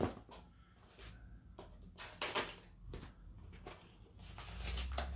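Handling of a cardboard comic mailer: scattered rustles and light knocks, then a longer rising scrape near the end as the package is worked open.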